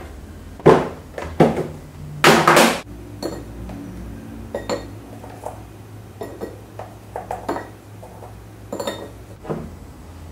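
Dishes and cutlery clinking and knocking, a series of short strikes with a louder clatter lasting about half a second around two seconds in.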